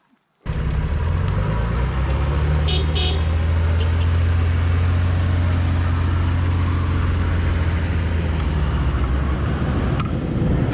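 A vehicle's engine running steadily with a low drone and road hiss, cutting in suddenly about half a second in. Two brief high chirps sound around three seconds in.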